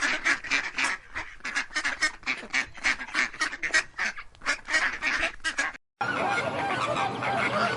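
Birds calling in a rapid series of short, repeated calls, several a second; about six seconds in the recording cuts out briefly, then many overlapping calls from a flock follow.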